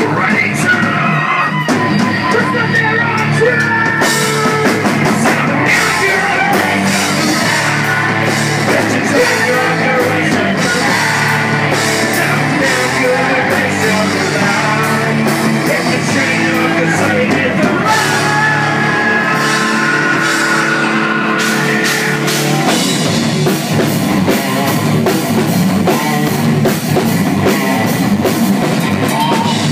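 Rap metal song played by a rock band, with electric guitars and a drum kit at a steady beat. The riff changes about three-quarters of the way through.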